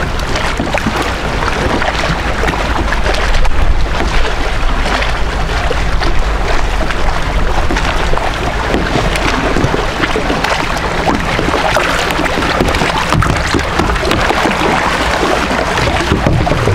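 Wind rumbling on the microphone over water lapping around a kayak, with splashes from a hooked fish thrashing at the surface.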